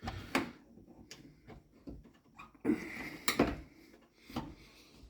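A handful of sharp clicks and knocks of hard plastic, with a short scrape a little past halfway, as a butter knife is worked against the retaining pins of a washing machine's inlet solenoid valve to free it.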